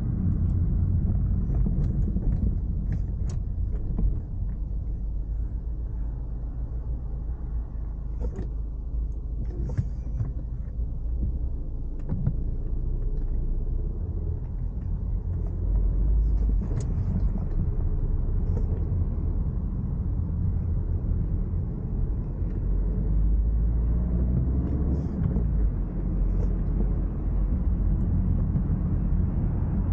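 Cabin noise of a Ford Focus on the move: a steady low engine and road rumble with tyre hiss from the wet road, and a few faint clicks.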